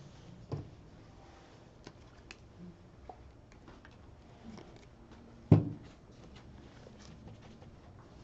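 Handling of acrylic paint supplies on a table: light clicks and taps, a knock about half a second in, and one sharp, loud knock about five and a half seconds in as a plastic paint bottle is set down on the tabletop.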